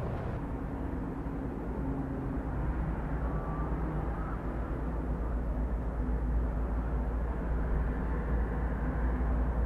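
Steady deep rumble of the erupting Cumbre Vieja volcano, with a faint hum over it.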